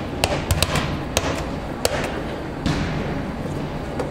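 Volleyballs being struck and bouncing on the courts of a large hall: irregular sharp smacks every half second or so, echoing over a steady crowd-and-hall din.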